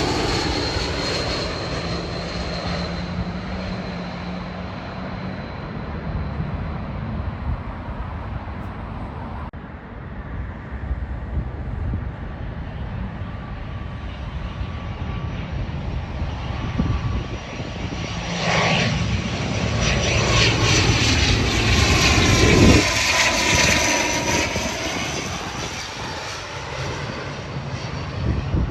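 Airliners passing: the engine noise of one fades away over the first few seconds. Another builds from about two-thirds of the way in, is loudest a little later with its whine falling in pitch, then fades.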